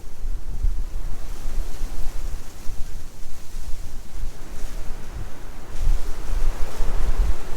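Blizzard wind gusting, buffeting the microphone with a low, uneven rumble under a rushing hiss; a stronger gust builds about six seconds in.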